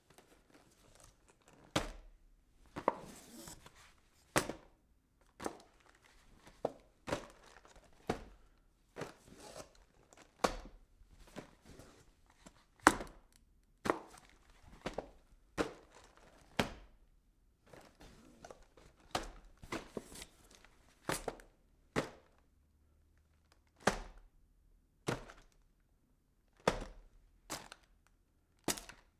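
Packing boxes being handled: a string of knocks and thuds about once a second as boxes are set down and bumped, with sliding and rustling between some of them. The knocks come further apart near the end.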